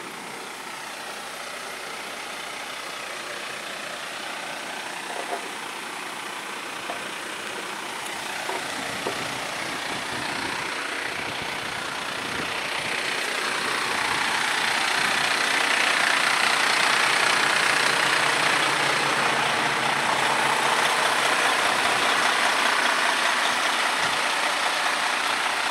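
Diesel engine of a heavy boom truck idling, a steady running noise that grows louder through the middle and then holds steady. A few faint knocks in the first seconds.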